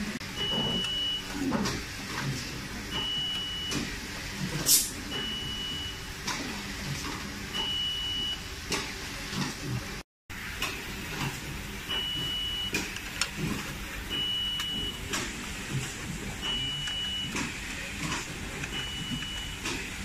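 Small clicks, taps and knocks of screws, a screwdriver and the metal and plastic case parts of a mini PC being handled on a work mat, with a brief scrape about five seconds in. A high electronic beep repeats about every two seconds, and a low hum runs underneath.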